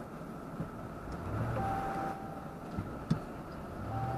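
Electronic beeps over low cabin rumble: a steady mid-pitched tone about a second long, sounding twice, with a couple of faint clicks between.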